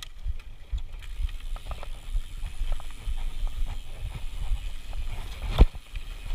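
Mountain bike rolling over a dirt trail: a steady low rumble with small rattles and clicks, and one sharp knock about five and a half seconds in.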